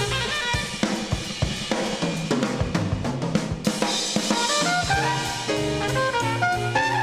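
Big-band jazz played from a vinyl record: the drum kit takes a busy passage on snare, bass drum and hi-hat with the horns mostly dropped out, and the held horn chords come back in about five seconds in.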